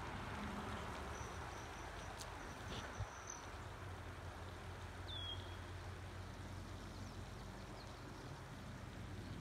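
Steady outdoor ambience: a faint even hiss over a low hum, with a thin high tone about a second in that lasts two seconds and a single short falling bird chirp about five seconds in.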